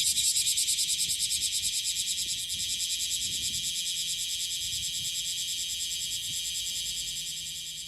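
Bear cicada (Cryptotympana facialis) singing: a loud, high, rapidly pulsing buzz that slowly fades over the last few seconds as the song winds down.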